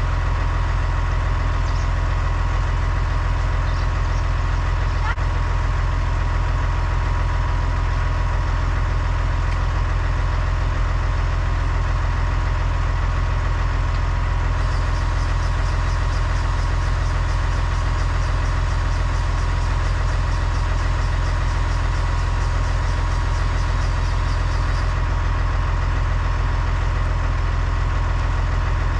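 Massey Ferguson tractor's diesel engine idling steadily, a deep even hum. A faint, fast, high ticking joins in for about ten seconds from around the middle.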